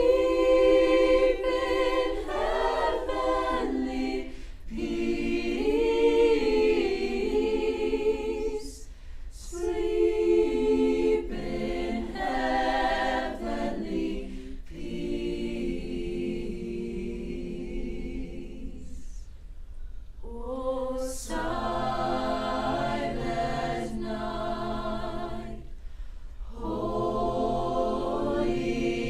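A choir singing unaccompanied in several parts, in phrases separated by brief pauses.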